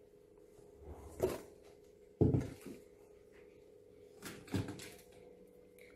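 Kitchenware being handled and set down: a few knocks, the loudest a sharp thud about two seconds in, over a faint steady hum.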